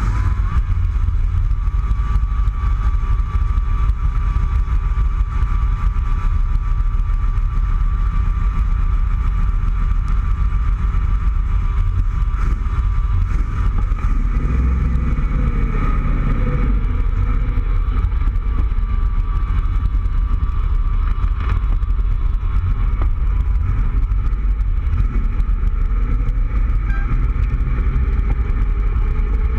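Cobra-style roadster's engine running with a steady low rumble, heard from the open cockpit. About halfway through, the engine note starts to rise and fall as the car pulls out and drives off.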